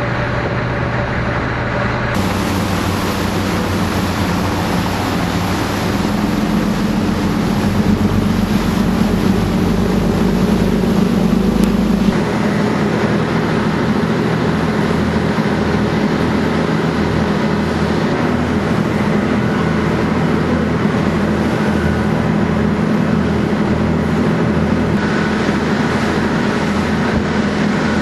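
Jenova Line high-speed passenger ferry running at speed: a steady engine drone over the loud rush of water and wake along the hull, changing abruptly about two seconds in and again near the middle.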